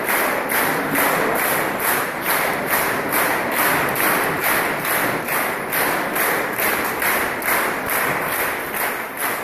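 An audience clapping in unison, a steady rhythmic applause of about two and a half claps a second.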